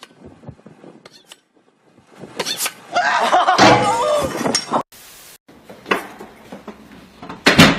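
A loud crash and clatter with a person shouting over it, cut off abruptly. A single sharp thump comes near the end.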